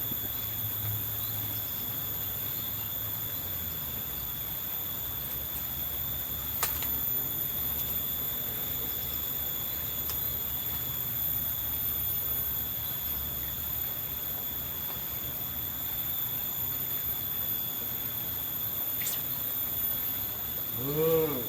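Insects droning steadily at a high pitch, with a few faint clicks. There is a short voice-like sound near the end.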